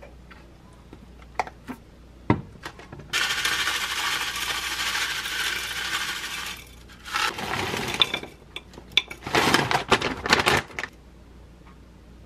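A few clicks and one sharp knock, then about three and a half seconds of steady crinkling and rattling as granola is shaken out of a small plastic bag into a bowl. Several shorter rattling bursts follow as more toppings drop in.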